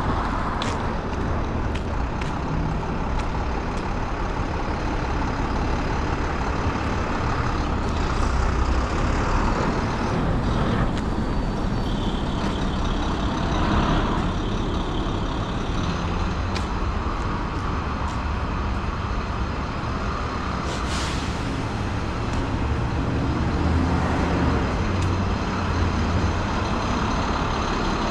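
City street traffic with heavy vehicles such as trucks and buses running, a steady low rumble throughout. A short hiss rings out about three quarters of the way through.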